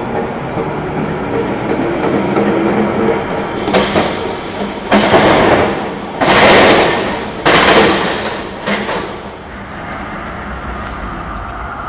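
Heritage W-class tram passing close by: a steady motor hum, then from about four seconds in a loud rattle and rumble of its steel wheels on the rails that dies away after about nine seconds, leaving steady city traffic noise.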